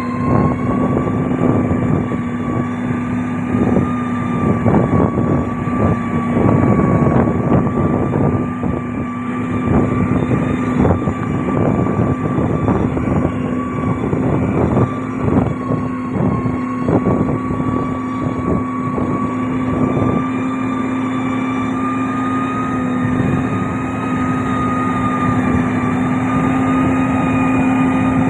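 Diesel engine of a heavy road-building machine running steadily, with many irregular crunching crackles over it, densest in the first two-thirds.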